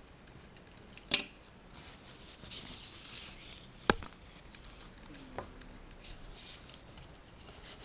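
Camera lens cap and neck strap being handled: two sharp plastic clicks, about a second in and about four seconds in, a smaller tick a little later, and faint rustling.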